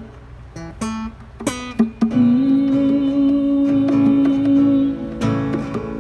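Acoustic guitar picked and strummed, with one long held melody note from about two seconds in until about five seconds in.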